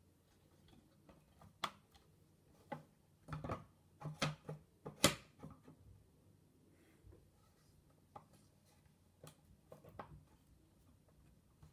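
Light wooden clicks and knocks as the parts of a wooden kumiko shoji lamp (frame, lattice panels and bulb base) are handled and fitted together in a dry fit. The clicks come irregularly, bunched together in the middle with the sharpest about five seconds in, and a few scattered ones near the end.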